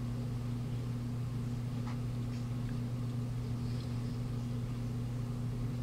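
Steady low hum with a faint hiss: room background tone, unchanging throughout.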